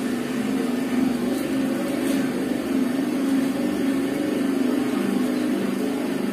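Hand-turned cotton candy machine running: its spinning sugar head and drive wheel give a steady mechanical whir with a low, slightly wavering hum as the floss spins out.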